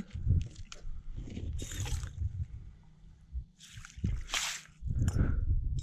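Slushy water sloshing and squishing in two short bursts, with wind buffeting the microphone as a low rumble.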